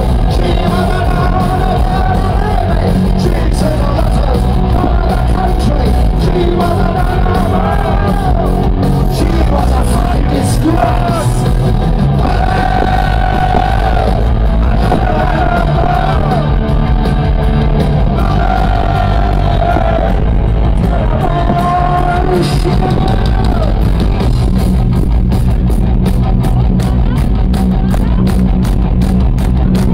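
Live punk rock band playing loud, with electric guitar, bass and drums under a male singer's vocal, recorded from within the audience. The singing comes in phrases and stops for the last several seconds while the band plays on.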